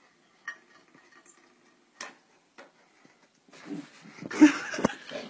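A few light clicks and clinks of a plate on a table as a kitten paws at it. In the last two seconds, a louder stretch of rustling with two sharp knocks.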